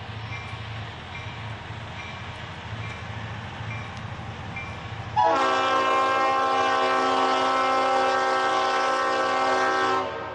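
EMD SW1200 switcher locomotive's diesel engine running with a low pulsing rumble as it approaches. About five seconds in, the locomotive's air horn sounds one long multi-note blast that holds steady for about five seconds and cuts off sharply near the end.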